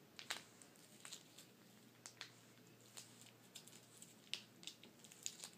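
Faint, scattered small clicks and crinkles of a plastic sauce packet being squeezed out by hand.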